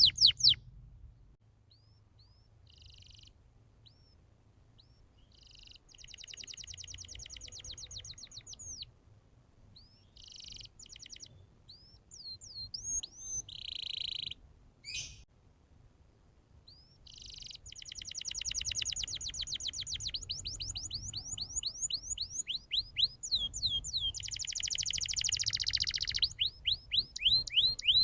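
Domestic canary singing a fast, varied song of trills and rolls mixed with single chirps and whistled notes. It starts sparse and soft, then breaks into long, loud trills about two-thirds of the way through.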